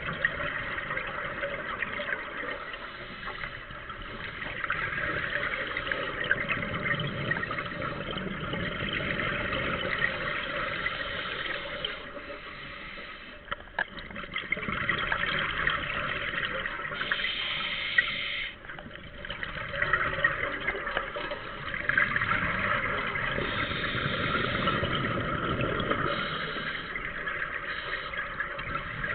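Scuba divers' exhaled regulator bubbles heard underwater, a gurgling rush in long stretches broken by a few short lulls between breaths.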